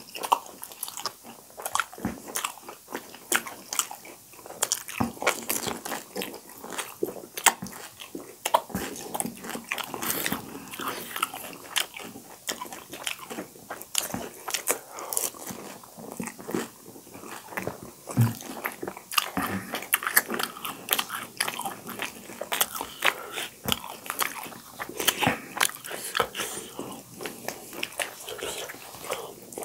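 Two people eating pani puri up close: the crisp, hollow puri shells crunch and crackle as they are bitten, with chewing, in a dense run of crunches that never lets up.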